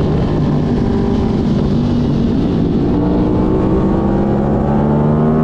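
Onboard sound of an Aprilia sport bike's engine running at high revs on a racetrack. Its pitch holds level at first, then climbs steadily through the second half as the bike accelerates.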